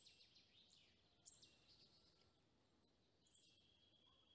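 Near silence with faint songbird song: a few short, high trilled phrases, each falling in pitch, heard several times.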